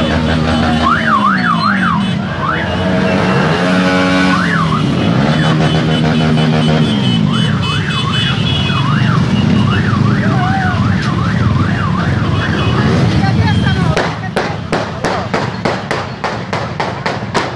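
Motorcycle rally din: engines and crowd, with warbling electronic sirens and low sliding horn blasts. About 14 s in, a rapid string of sharp gunshots begins, roughly three a second, and keeps on to the end.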